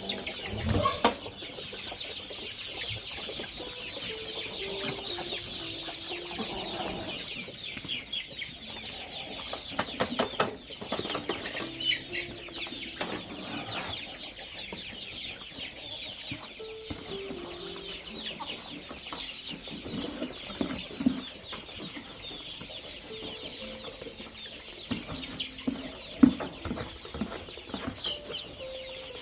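Chickens clucking, over a constant high-pitched chirping, with a few sharp knocks.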